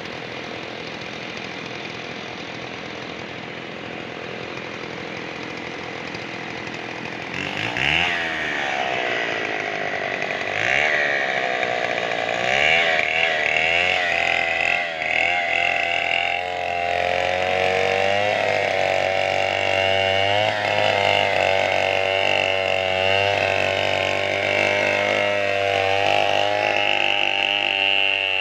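Two-stroke chainsaw engine running quietly at first, then revved hard several times from about seven seconds in, its pitch swinging up and down, before holding steady at high revs for the rest of the time.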